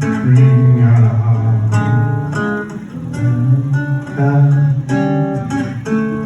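Ensemble of acoustic guitars playing a samba: plucked and strummed chords in a steady rhythm over a strong bass line, with no singing.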